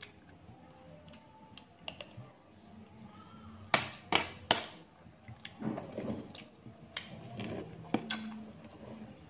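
Metal spoon and fork clinking and scraping against a plate while eating: three sharp clinks in quick succession about four seconds in and another near the end, with quieter scraping and chewing in between.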